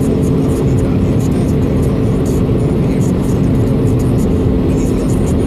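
Steady road noise of a car cruising at motorway speed, heard from inside the cabin: tyre rumble on the asphalt with an even engine and drivetrain hum.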